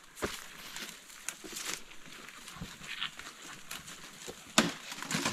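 Rustling and crackling of forest undergrowth with scattered sharp knocks, the loudest about four and a half seconds in.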